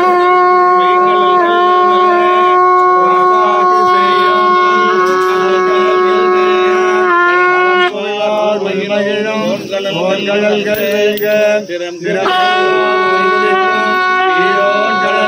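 Conch shell (shankha) blown in a long, steady, loud note lasting about eight seconds. It breaks off, and about four seconds later a second long blast begins and holds on.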